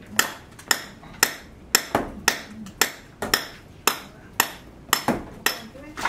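Hammer blows struck in a steady rhythm, about two a second, each a sharp knock with a short ring.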